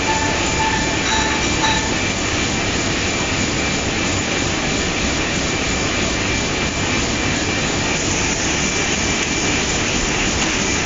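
Sheet-fed offset printing press running at production speed: a loud, steady mechanical rumble and clatter with a constant high whine.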